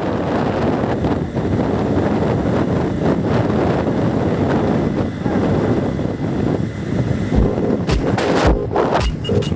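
Wind buffeting the microphone, with road rumble, from a vehicle travelling at about 90 km/h over a concrete road. From about three-quarters of the way in, short low thumps come roughly twice a second.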